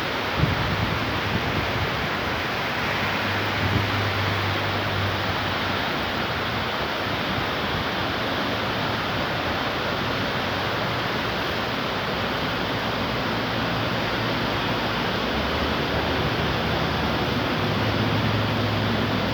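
Heavy rain pouring down steadily in a summer thunderstorm, a dense, even hiss. A low hum rises under it a few seconds in and again near the end.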